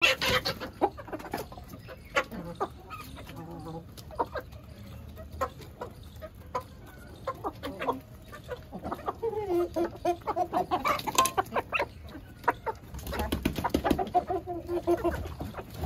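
Chickens clucking, with many short sharp clicks scattered throughout and longer drawn-out clucking calls about nine seconds in and again near the end.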